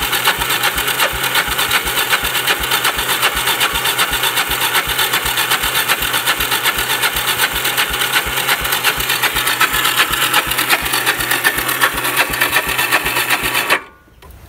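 Electric starter cranking the Kawasaki Bayou KLF300's single-cylinder four-stroke engine without it firing: a steady whir with an even chugging rhythm of about three or four pulses a second, which stops abruptly near the end. It won't catch because the newly installed fuel shut-off valve was left closed, so no fuel reached the engine.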